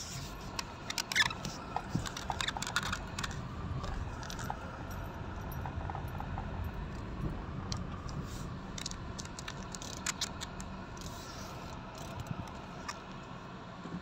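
Car driving on an unpaved road, heard from inside the cabin: a steady low rumble from the engine and tyres, with many light scattered clicks and rattles.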